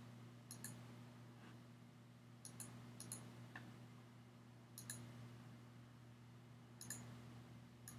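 Faint computer mouse clicks, mostly in quick pairs, every second or two, over a low steady hum.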